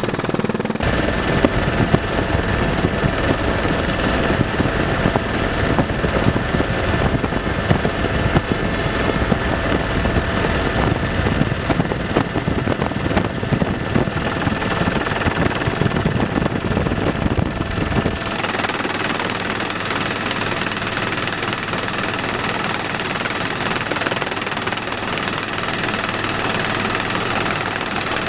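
Steady helicopter noise heard from aboard the aircraft, a dense rumble with a thin high whine over it. About 18 seconds in the sound changes abruptly, losing most of its low rumble.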